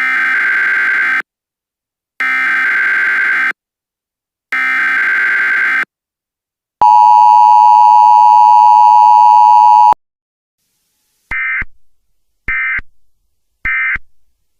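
Emergency Alert System signal: three harsh, buzzing data bursts of about a second each, then the steady two-tone attention signal for about three seconds, then three short data bursts near the end.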